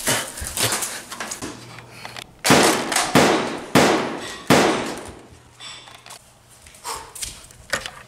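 A series of sharp bangs, each ringing off briefly: four loud ones about two-thirds of a second apart in the middle, and fainter hits near the end.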